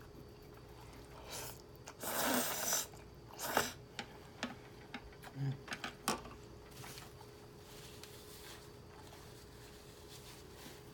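Eating noises while finishing a bowl of noodles with chopsticks. A short noisy slurp comes about two seconds in, then chopsticks click and tap sharply against the container several times.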